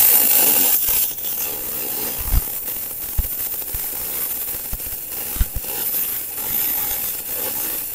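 MIG welding arc running on aluminium, fed by a Tenya Smartmig 265 welder: a steady hissing crackle with a few low pops scattered through it.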